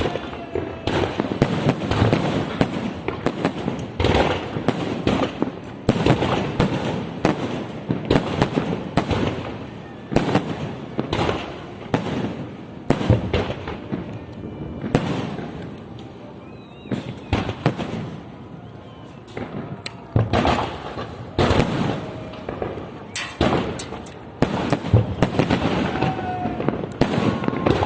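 Fireworks display: repeated bangs of bursting shells with crackling after them, coming in clusters with a quieter lull a little past the middle.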